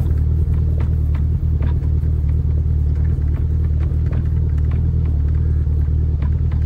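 Steady low rumble of a vehicle engine moving at slow speed, with scattered light clicks and rattles.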